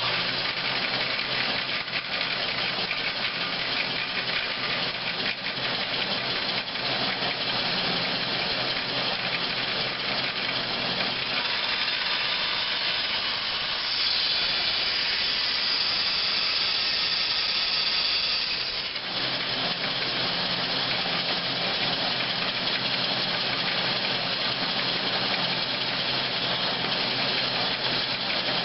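Band saw running steadily, cutting the slots of a wooden feather board blank; for about five seconds in the middle the sound grows slightly louder and brighter as the blade works through the wood.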